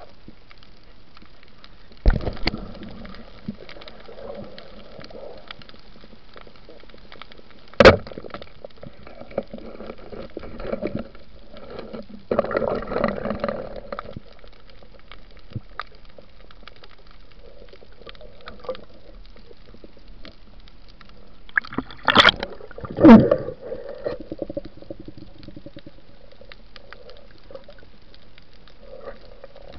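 Underwater sound on a night spearfishing dive: a steady faint hiss with scattered fine clicks, broken by a few sharp knocks and two spells of bubbling gurgles.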